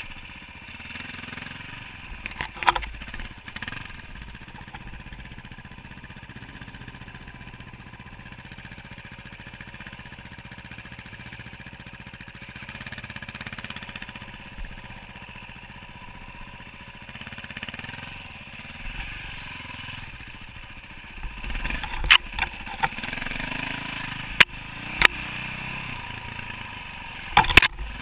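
Dirt bike engine running as the bike is ridden along a bumpy trail, with sharp knocks and clatter, the loudest a few seconds in and in a cluster over the last several seconds.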